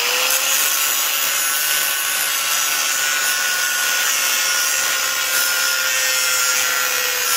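Angle grinder with an abrasive disc grinding a notch into steel bar stock: the motor's whine rises to full speed right at the start and then holds one steady pitch under a harsh, loud grinding hiss.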